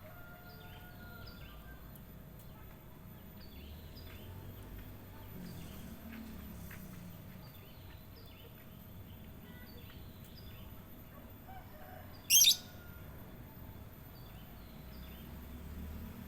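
Songbirds chirping: short high notes repeating a few times a second, with one much louder, short shrill call about twelve seconds in.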